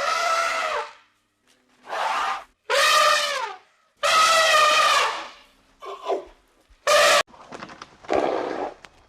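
A series of loud, drawn-out animal calls, about six in all, each roughly a second long with a clear pitch that sags at the end, separated by short pauses.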